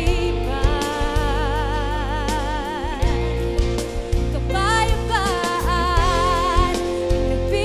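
Female vocalist singing a slow Filipino worship ballad with a live band. She holds two long notes with wide vibrato over steady bass and sustained chords; the second is on the word "kapayapaan" ("peace").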